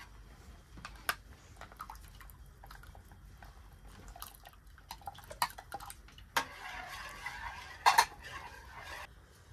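Metal spoon stirring a thick soup in an enamel pot, with small clinks against the pot now and then. About six seconds in, chickpeas are poured from a glass jar into the soup with a brief rustle and splash. A sharp clink near the end is the loudest sound.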